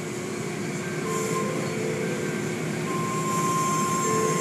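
Automatic tunnel car wash heard from inside the car: a steady rush and rumble of water spray and cloth wash strips working over the car. A thin steady machine whine joins in about three seconds in.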